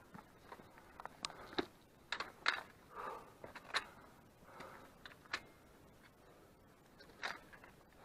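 Footsteps of hiking boots on rock and loose stones: irregular sharp clicks and short scrapes, loudest about two and a half and four seconds in.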